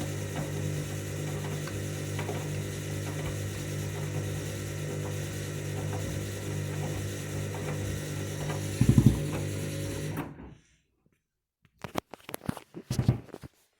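Washing machine drum turning on its motor with a steady hum and faint ticking, a heavy thud from the load about nine seconds in. The motor then stops suddenly, and after a short silence there are a few scattered knocks and clicks.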